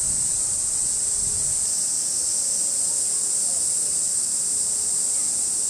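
A loud, steady, high-pitched chorus of summer cicadas, without a break. Low wind rumble on the microphone fades out in the first second and a half.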